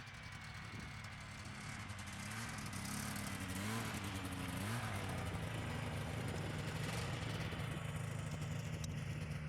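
Snowmobile engine running, its pitch rising and dipping a few times in the first half, then holding steady as it grows louder.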